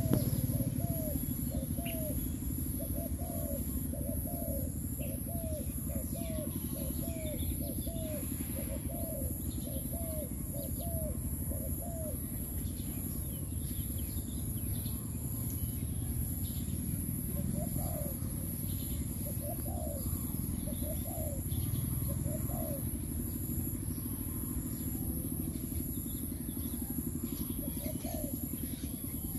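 Dove cooing: a fast run of short, rise-and-fall coos, about one and a half a second, for the first twelve seconds, then a few scattered coos later. A steady low rumble runs underneath.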